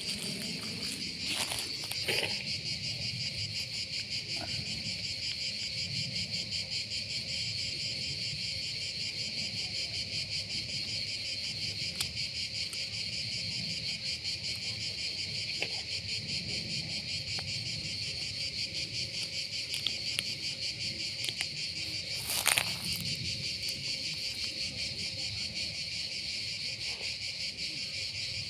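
A dense, steady chorus of insects, high-pitched and unbroken, with a few faint clicks and one louder short crackle about three quarters of the way through.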